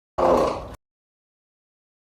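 A single short fart sound effect, a low rough blurt lasting just over half a second that starts abruptly, fades and cuts off sharply.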